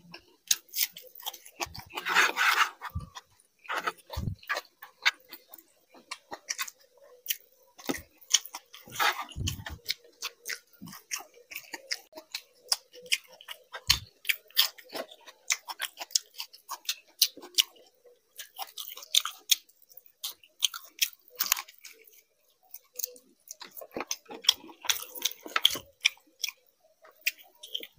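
A person chewing and biting food close to the microphone: many short, irregular mouth clicks and crunches, with a few louder bites.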